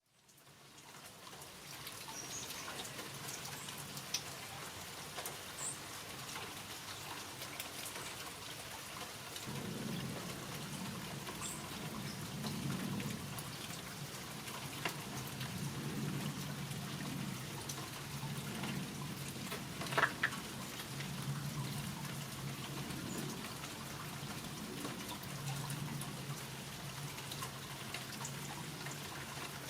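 Steady rain falling, with many small drops ticking on a surface. From about ten seconds in, a low, intermittent murmur comes and goes beneath the rain, and a short sharp sound stands out about two-thirds of the way through.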